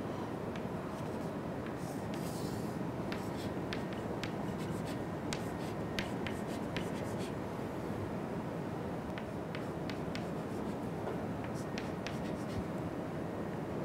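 Chalk on a blackboard: short taps and scrapes as lines and tick marks are drawn, a few clicks at a time, over a steady low room hum.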